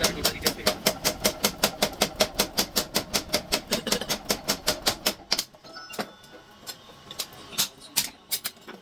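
Rapid, evenly spaced hammer blows on steel, about seven a second, as bearing steel is forged into a knife blade. The hammering stops about five seconds in, and a couple of single strikes follow.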